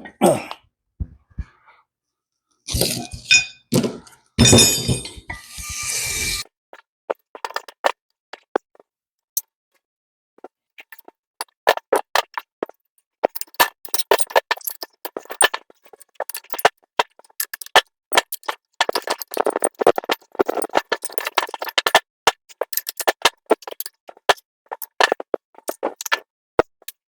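Metal disc brake parts being handled at a workbench. About three seconds in there are a few seconds of scraping and rattling with some ringing. From about eleven seconds on comes a long, irregular run of quick light clinks and taps.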